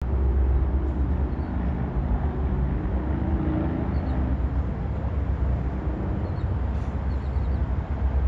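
Low rumble with a steady droning engine note from the train's approaching diesel locomotives, an EMD SD60E and a GE AC44C6M. The note is clearest in the first half. A few faint bird chirps.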